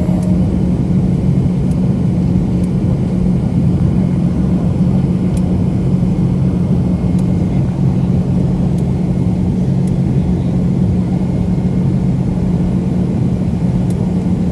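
Steady rumble of an airliner cabin, the engines' low drone carrying two steady hum tones with a few faint ticks over it.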